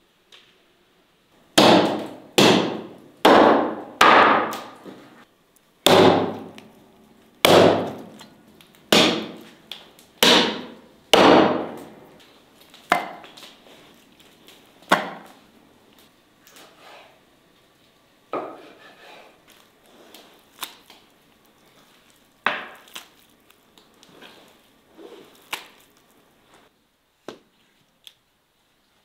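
Chopping blows on wood: about nine heavy strikes in quick succession, each ringing out briefly, then lighter strikes a few seconds apart. The later strikes are an axe splitting firewood.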